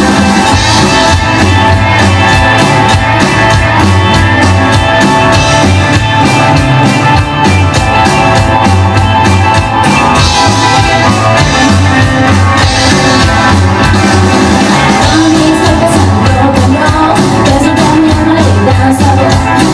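Rock and roll recording in rockabilly style, with drum kit and guitar playing to a steady beat.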